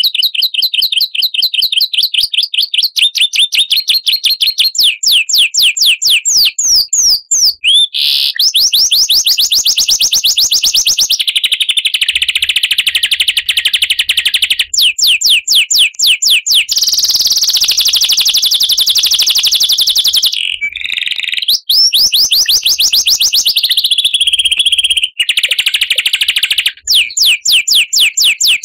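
Recorded songbird calls played as a masteran (song-tutor) track: rapid runs of high repeated chirps and trills, switching to a different pattern every few seconds, with a brief break about two-thirds of the way through.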